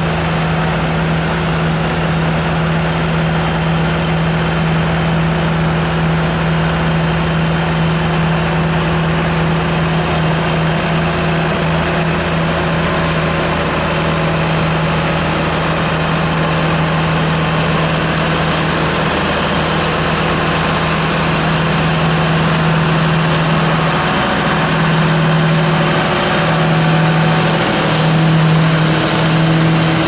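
John Deere tractor diesel engines and a trailed potato harvester running together while harvesting: a steady, loud engine drone with a strong low hum under the noise of the harvester's working machinery. The hum wavers a little near the end.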